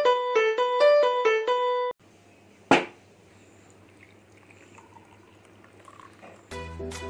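A bright piano-like jingle ends about two seconds in. After a single sharp click comes a quiet stretch of water pouring faintly from a kettle into a glass. Background music with a low beat comes in near the end.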